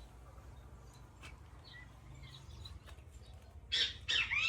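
Bem-te-vi (great kiskadee) call: a loud burst of sharp, arching notes near the end, with only faint chirps and a low background hum before it.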